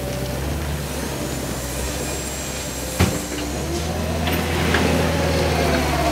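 Cat 289D compact track loader's diesel engine running as the machine drives and turns, its pitch rising and falling with the throttle. There is a sharp clank about three seconds in.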